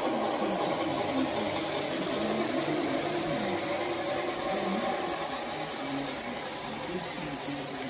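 HO-scale brass model steam train running past: a steady whir of motor and gear noise with the wheels rolling on the track, easing off slightly toward the end as the cars go by.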